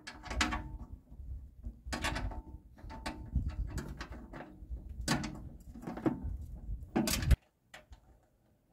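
Knocks and rattles of a mulching-kit discharge cover and its screw being worked against a steel mower deck, several sharp clacks a second or so apart over a low rumble. The sound stops abruptly a little past seven seconds in.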